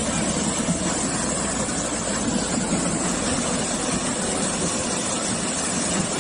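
Steady rushing rumble of a debris flow: mud and rocks sliding down a slope.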